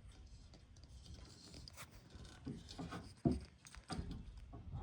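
Faint handling noise in a small room: light rubbing and scattered small clicks, with one sharper knock a little past three seconds in.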